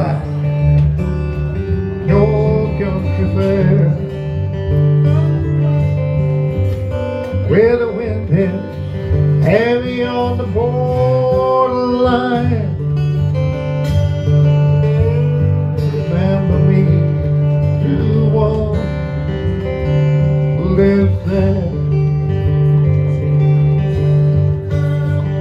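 Lap-style slide guitar played flat across the lap: an instrumental passage of melody notes sliding up and down in pitch over steady picked bass notes.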